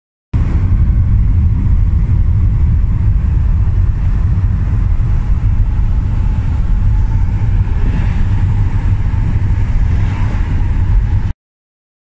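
Steady road and engine rumble inside a passenger van's cabin while it drives along a highway. The noise starts abruptly just after the start and cuts off suddenly about a second before the end.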